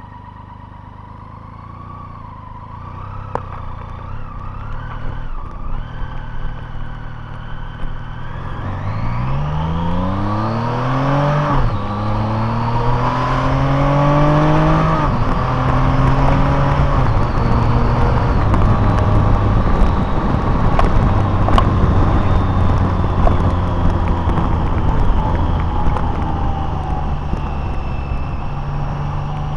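Car engine accelerating, its pitch rising and dropping back twice as it goes up through the gears, then settling into a steady cruise with tyre and road noise.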